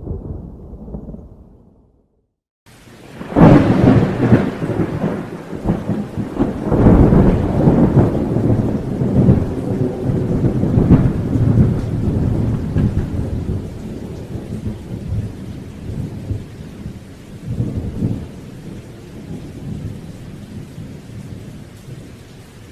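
Thunder: a muffled rumble fades out about two seconds in, and after a brief gap a sharp, loud thunderclap breaks. A long rolling rumble follows over steady rain and slowly dies away.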